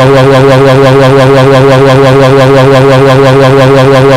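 Extremely loud, harsh electronic buzzing drone, one steady pitch with a fast regular warble, played as a deliberately ear-splitting 'punishment' noise.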